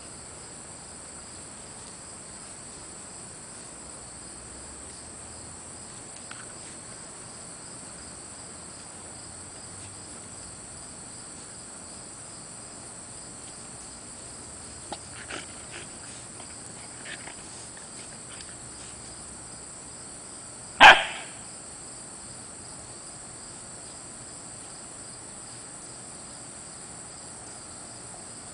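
Siberian Husky puppy giving one loud, short bark about three quarters of the way through, over the steady high chirring of crickets; a few faint short sounds come a few seconds before it.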